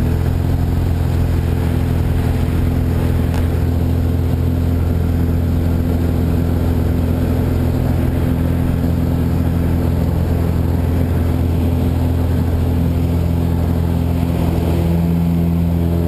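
A single-engine, high-wing light aircraft's piston engine and propeller run steadily at taxi power as the plane rolls along the taxiway, heard from inside the cabin. The engine note shifts slightly a few seconds before the end.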